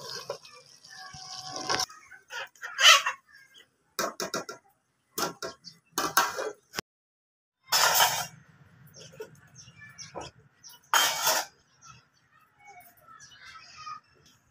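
Domestic hen clucking in short, separate bursts.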